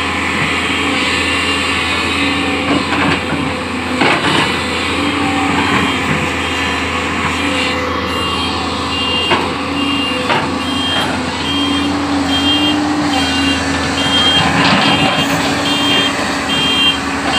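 JCB backhoe loader's diesel engine running and working under load, with a few sharp knocks. About halfway through, a reversing alarm starts beeping steadily in two tones.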